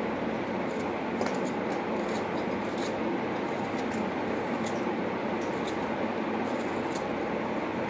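Kitchen knife cutting a peeled, frozen tomato into small pieces, with light scattered clicks and scraping over a steady background hiss.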